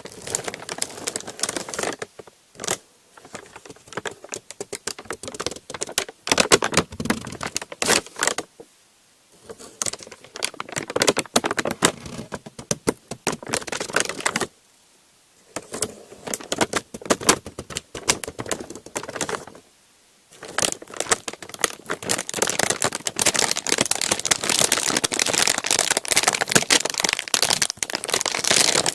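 Close-miked ASMR trigger sounds: rapid crinkling and clicking taps in bursts, broken by short pauses about a third of the way in, halfway through and about two thirds in.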